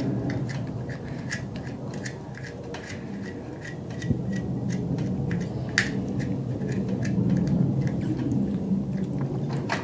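Light metallic clicks and ticks as a nut is turned by hand onto the threaded clutch-cable adjuster of a Bajaj Pulsar 150 motorcycle, over a steady low hum. A sharper click comes about six seconds in.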